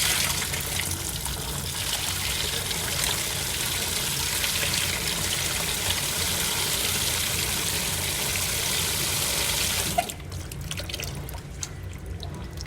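Water rushing into the drum of an AQUA MCW-C70A coin-operated 7 kg washing machine as it fills. The hiss starts sharply and cuts off abruptly about ten seconds in, leaving a low steady hum from the machine.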